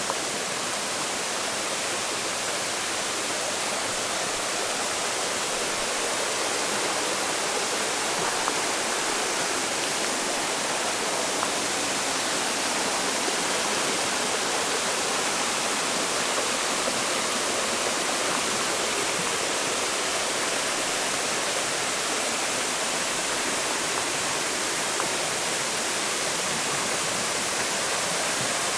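Water of the Valmolina torrent rushing steadily over rocks and small cascades in a mountain stream.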